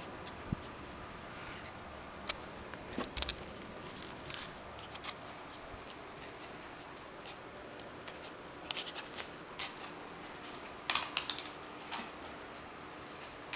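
Scattered light clicks and taps in small clusters a few seconds apart: a Pomeranian–silky terrier mix puppy's claws and its bone clicking on a tiled floor as it plays, over a steady faint hiss.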